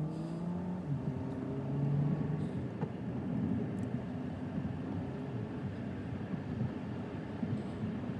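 A car running, with a steady engine hum and road noise; its low engine note shifts in pitch in the first couple of seconds.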